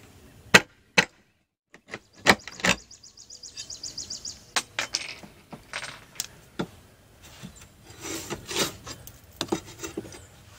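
Hammer and pry bar working loose rotted wooden corner trim: a series of sharp knocks, a brief high squeak about three seconds in, and scraping wood near the end.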